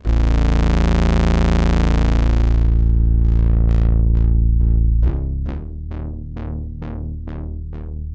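A low monophonic bass note on an Ensoniq EPS16+ sampler, playing the saw-like pulsing waveform B09. It starts bright, its upper tones fade after about three seconds, and it then pulses about twice a second. About five seconds in it moves to a different, quieter note, which stops near the end.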